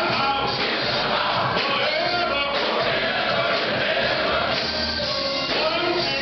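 Large men's chorus singing a gospel song in full voice, sustained and continuous.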